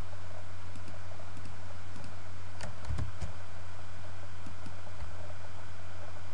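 Steady low electrical hum and hiss from a computer recording microphone, with a few sharp clicks of a computer keyboard and mouse, mostly around the middle.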